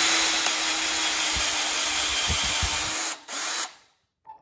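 Cordless drill running steadily with a larger bit, boring a shallow hole into a metal motorcycle handlebar. It stops about three seconds in, runs again briefly, then stops.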